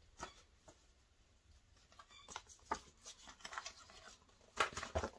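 Cross-stitch chart booklets being handled and shuffled: faint paper rustling and light clicks, with a sharper tap near the end.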